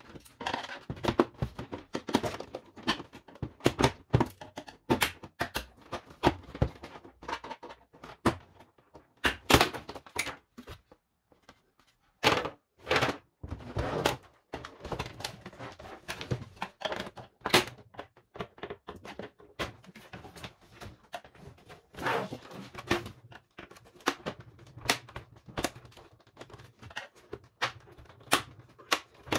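Plastic housing and side panel of a Siemens EQ.5 bean-to-cup coffee machine being handled during disassembly: a run of irregular plastic clicks and knocks, with a short pause about a third of the way in.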